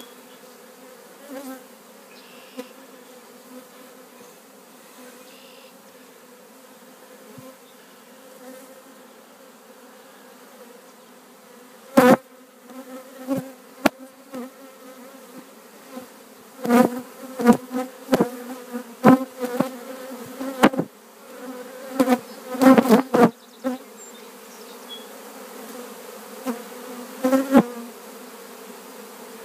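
Honeybee swarm humming steadily. From about halfway through, loud short buzzes come and go many times over the hum, with two sharp clicks among them.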